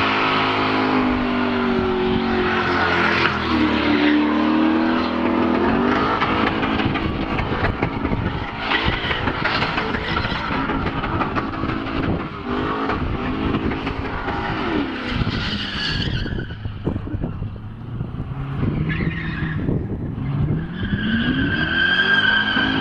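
Car engine revving up hard several times, with tyres squealing.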